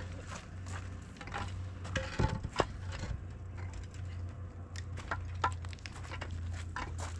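Hollow concrete blocks knocking and scraping as they are carried and set on a block wall, with footsteps on gravel; the loudest knocks come about two seconds in, over a steady low hum.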